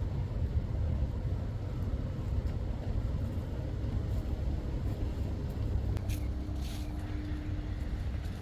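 Steady low rumble of outdoor background noise, with a faint steady hum joining in for about two seconds near the end.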